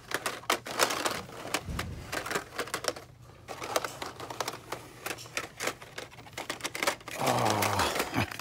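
Plastic blister-card packages of die-cast toy cars being flipped and pushed along metal store peg hooks: rapid plastic clicking and clatter, with a dull thump about two seconds in.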